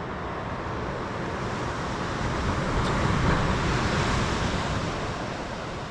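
Ocean surf washing on a sandy beach, one wave swelling up about two seconds in and easing off near the end.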